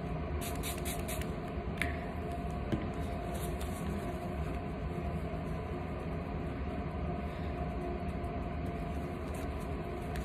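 Steady machine hum made of several fixed tones, with light crackles of a paper towel as gloved hands press it onto the inked lung specimen to blot it and then peel it back.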